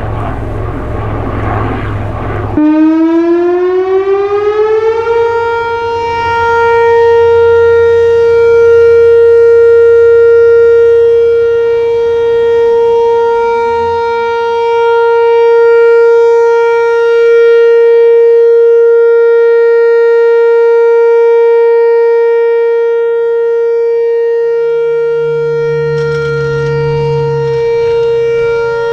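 Whelen WPS-4004 electronic outdoor warning siren sounding its Alert signal. About two and a half seconds in, a loud tone rises in pitch over about two seconds, then holds one steady pitch.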